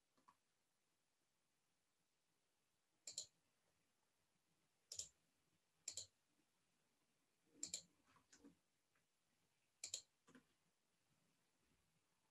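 Faint clicks from a computer mouse and keyboard, one every second or two, as objects are duplicated, moved and rotated in 3D software; near silence between them.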